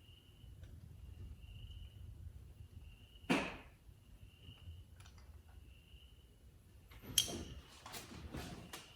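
Hand-work clicks at an engine's spark plug well: one sharp click about three seconds in, then a cluster of shorter clicks and rustles near the end. A faint high chirp repeats about every second and a half underneath.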